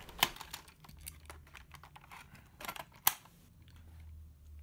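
Clicks and rattles of hard plastic as a four-cell AA NiMH battery pack is pushed into a toy RC car's plastic battery compartment and the cover is fitted shut. There is a sharp click just after the start and a louder cluster of clicks about three seconds in.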